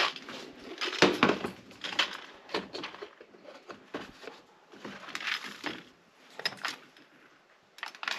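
Plastic microscope-slide storage boxes handled by hand: pulled off a metal shelf and opened, giving a string of clatters, scrapes and knocks, loudest about a second in.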